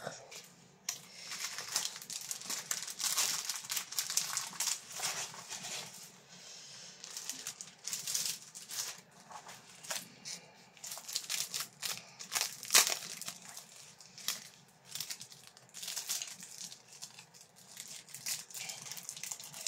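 Plastic-film-covered diamond painting canvas crinkling and crackling as it is folded, rolled up and handled in its plastic wrapping, in irregular bursts.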